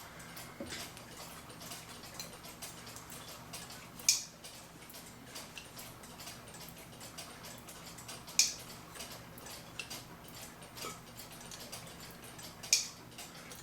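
Sharp little clicks from the metal parts of a clock movement being handled and fitted back together. The loudest click comes about every four seconds, with fainter ticks in between over a faint steady low hum.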